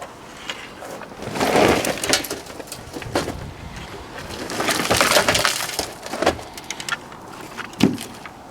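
Brittle plastic and glass car parts crackling, crunching and clattering as they are handled and pried at, with a sharp knock near the end.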